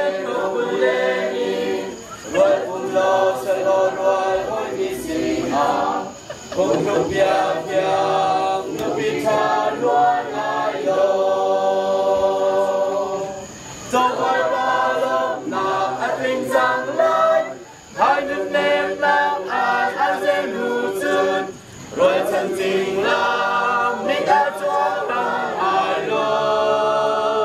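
A choir singing without instruments, in sung phrases a few seconds long with short breaks between them.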